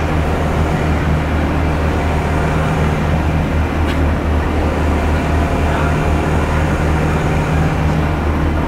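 Steady engine drone and road noise heard inside a bus's cabin as it drives along at an even pace.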